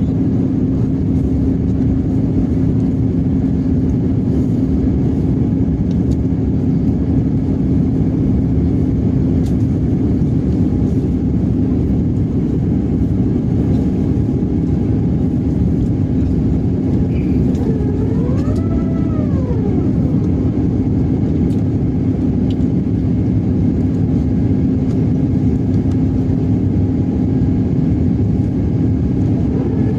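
Steady cabin noise of an airliner in flight: an even rush of engine and air noise with a constant low hum. About two-thirds of the way in, a brief tone rises and falls, and another rises near the end.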